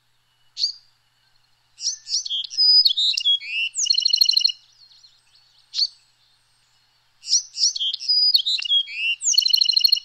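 Bewick's wren singing: two songs about five seconds apart, each a quick jumble of sharp high notes ending in a fast buzzy trill, with a single short note before each song.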